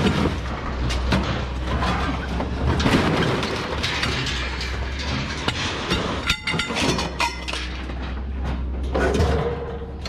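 Scrap steel clattering and clanking as sheet-metal washing-machine panels and steel mesh are handled and dropped on a trailer's steel deck, with one ringing metal clang about six seconds in. A steady low rumble runs underneath.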